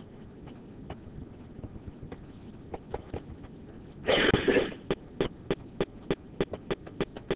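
A stylus tip clicking against a writing tablet while handwriting, with sparse light clicks at first and then a quick run of about four clicks a second. A single short cough sounds about four seconds in.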